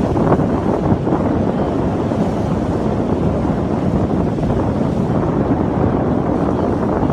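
Wind buffeting the microphone, a loud, steady low rumble that flutters constantly.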